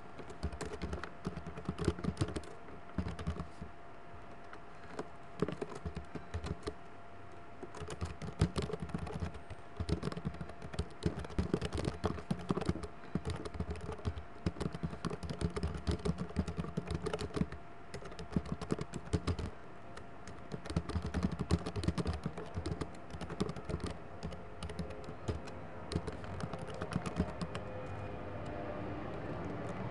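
Typing on a computer keyboard: quick runs of key clicks in bursts with short pauses between them, over a faint steady hum.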